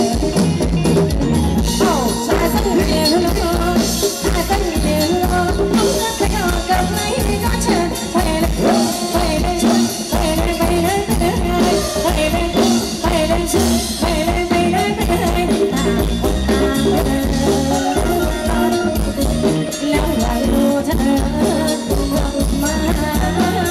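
A live band playing Thai ramwong dance music: a singer over drum kit and percussion, with a steady beat.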